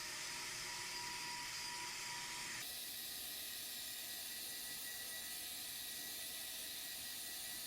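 Steady, faint background hiss with a thin steady whine in it, changing character abruptly about two and a half seconds in; no distinct knife or hoof sounds stand out.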